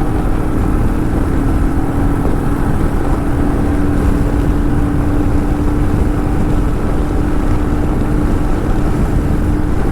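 Motorcycle cruising at steady highway speed, heard through a helmet-mounted mic: a constant engine drone holding one pitch over a dense rush of wind and road noise.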